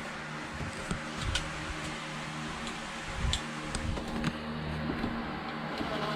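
Scattered light clicks and taps of screws being driven by hand into a new shower fixture, over a steady low hum.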